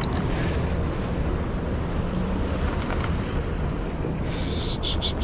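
Strong wind buffeting the microphone over sea surf, a steady low rumble. About four seconds in comes a quick series of short, hissing rustles.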